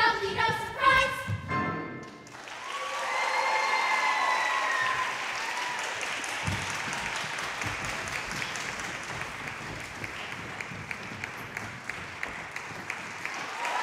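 Young cast singing the last note of a show tune with piano accompaniment; the song stops about two seconds in. Audience applause follows, with a few cheers just after it starts.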